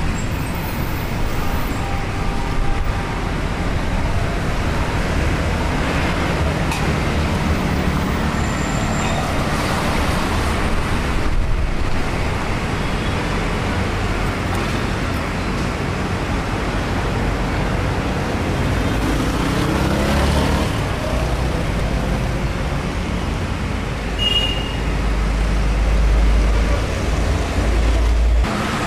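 City street traffic: a steady roar of vehicles passing, with one engine sweeping past about two-thirds of the way in and a deep rumble loudest near the end.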